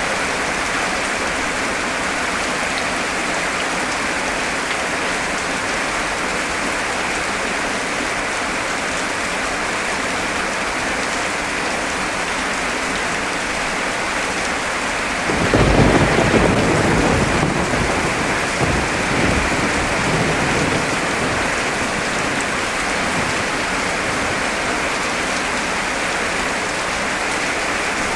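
Heavy rain falling in a steady, dense hiss. About halfway through, a clap of thunder breaks in suddenly and rumbles for about five seconds before fading back under the rain.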